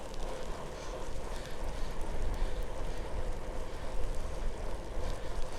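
Wind buffeting the microphone of a moving bicycle in gusts, a low rumble over a steady noise, with a faint steady hum beneath.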